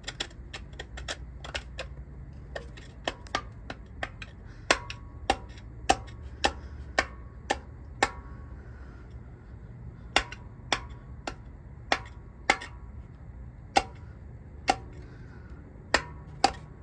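Screwdriver tip tapping a steel freeze plug in the engine block, a long series of sharp metallic taps about one or two a second, with a pause past the middle. The taps test whether the weeping plug has rotted through.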